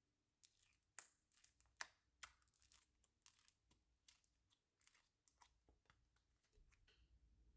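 Slime being worked by hand, giving an irregular run of small crackling pops and clicks.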